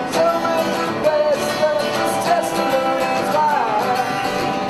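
A voice singing long, wavering notes over an acoustic guitar.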